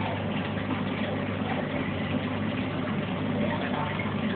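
Aquarium pump running: a steady low hum with a constant wash of noise above it, no change in level throughout.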